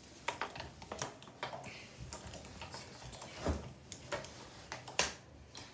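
Irregular light clicks and taps, about a dozen, with one duller, heavier knock about three and a half seconds in.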